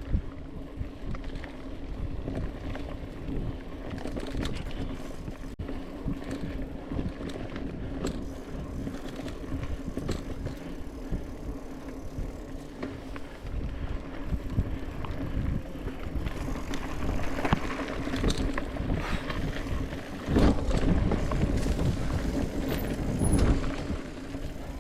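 Mountain bike being ridden: tyres rolling on the trail with a steady hum, under many small rattles and knocks from the bike. It grows louder and busier in the last several seconds.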